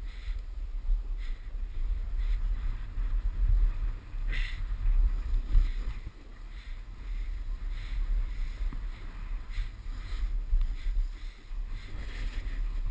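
Wind buffeting a worn action camera's microphone as a rider descends a steep snow slope, with a short hissing scrape of edges on snow every second or so as turns are made.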